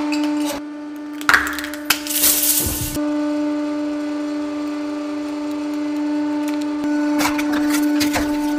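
Hydraulic press running with a steady pitched hum while its ram crushes small objects. Sharp cracks and a crunch come between one and three seconds in, and near the end a cluster of cracking and splintering wood sounds as a wooden piece gives way.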